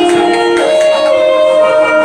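Instrumental backing music with long held string-like notes, the pitch shifting to a new chord about half a second in.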